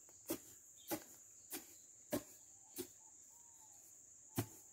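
Long wooden pestle pounding dried onion seed heads in a wooden mortar, threshing the seed loose: dull strikes about every 0.6 s, five in a row and then a sixth after a pause of about a second and a half.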